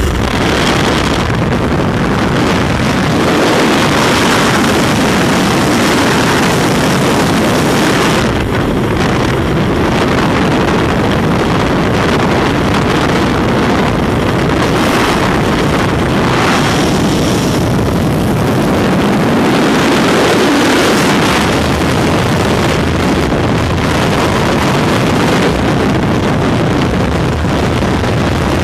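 Loud, steady rush of freefall wind buffeting the camera microphone.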